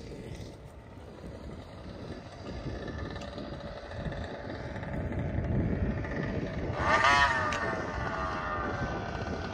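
Gas-powered Raminator RC monster truck's small two-stroke engine revving up and easing off as the truck drives. The loudest rev comes about seven seconds in, and its pitch falls away afterwards.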